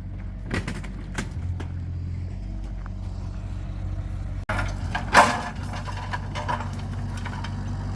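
A vehicle engine running steadily in a scrapyard, with scattered knocks and a louder knock about five seconds in.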